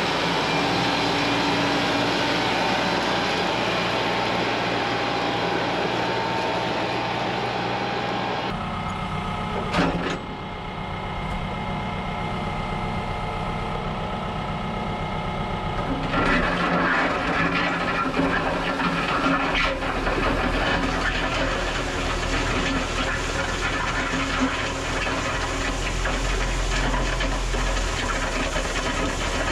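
TYM farm tractor's diesel engine running steadily while it pulls a land plane over a fresh gravel road. The sound shifts abruptly about a third of the way in and again about halfway through.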